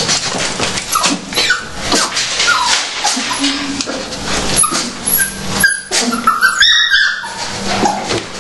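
Puppies whimpering and yipping in short, high, rising cries, hungry and excited at feeding time, with scattered knocks among them.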